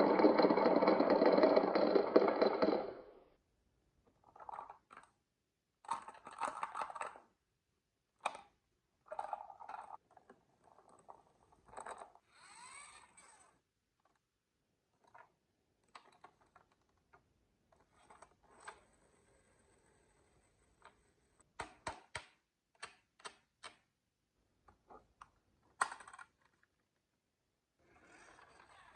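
Marbles and small toy vehicles rolling and clattering down a wooden HABA marble run: a steady rolling rumble for about the first three seconds, then scattered sharp clicks, clacks and short rattling runs.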